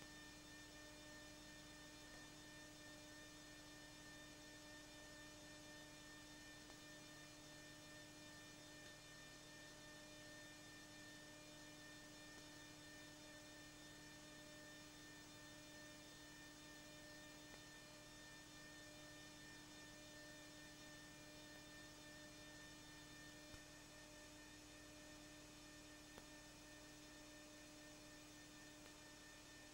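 Near silence with a faint, steady electrical hum and two faint ticks in the second half.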